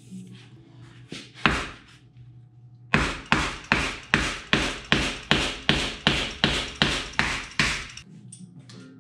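Hammer pounding a wood block down on a rust-seized piston of a 1944 Ford flathead V8, to free the stuck engine. Two blows about a second in, then a steady run of about fourteen blows, nearly three a second.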